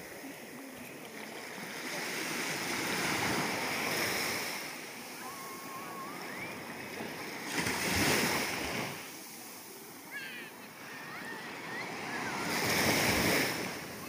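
Small sea waves breaking and washing up over a sandy shore, the surf swelling three times, about 3, 8 and 13 seconds in, and easing off between.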